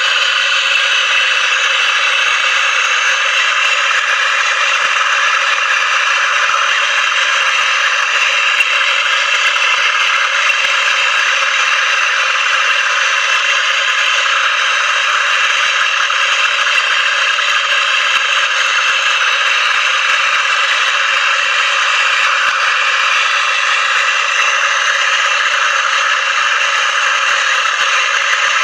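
Handheld MAPP gas torch burning with a steady hiss as it heats a copper pipe joint for brazing.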